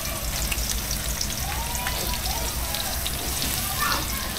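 Chopped onions frying in hot oil in a kadhai: a steady sizzle dotted with fine crackles.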